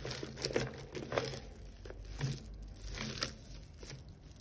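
A heap of costume jewellery being rummaged through by hand: beads, chains and metal trinkets clicking and rattling against each other in small irregular clatters.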